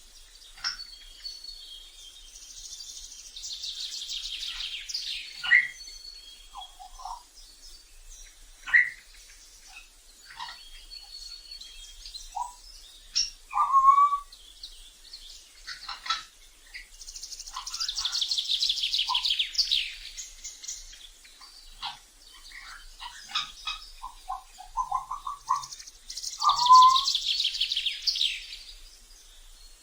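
African grey parrots calling: short whistles and chirps, with three long, high rasping calls of about two seconds each, a few seconds in, past the middle and near the end.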